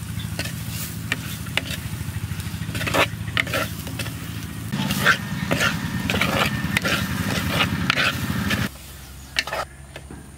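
A spoon stirring and scraping spices frying in a clay pot, with repeated scrapes and light sizzling. Under it a low, steady motor-like hum runs and cuts off suddenly near the end.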